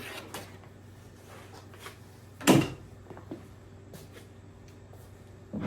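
Wooden ultralight aileron being turned over on a workbench: two solid knocks as it is handled and set down, one about two and a half seconds in and another at the end, with a few light clicks between.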